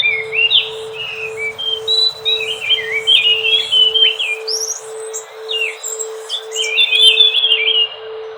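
Thrush song: a fast, continuous run of varied whistled phrases that jump and slide in pitch. A low tone pulses evenly underneath, about one and a half times a second.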